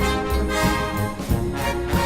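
Orchestral theme music with brass carrying the tune over a steady beat.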